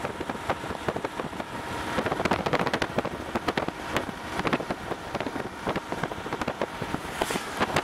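Rain drops pattering irregularly on the car's roof and windshield over the road noise of the moving car, heaviest about two to three seconds in and again near the end.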